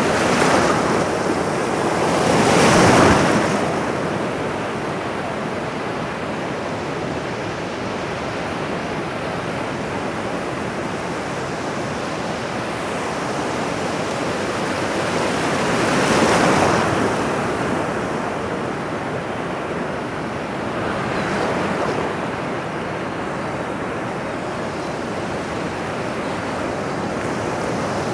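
Ocean surf: a steady wash of water, with waves swelling louder about three seconds in, again around sixteen seconds, and more softly around twenty-one seconds.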